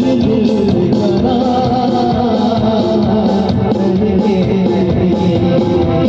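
Loud music played through a DJ sound system, with a steady beat and sustained melody lines.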